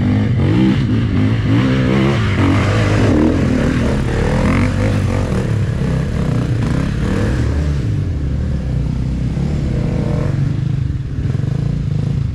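Dirt-bike engines running, with pitch rising and falling unevenly as the riders work the throttle climbing a rutted trail.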